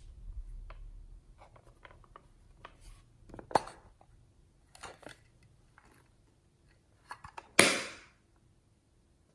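A hard plastic case handled and opened and shut: scattered light clicks and taps, a sharp snap about three and a half seconds in, a few clicks around five seconds, and a loudest snap a little past seven and a half seconds that tails off over about half a second.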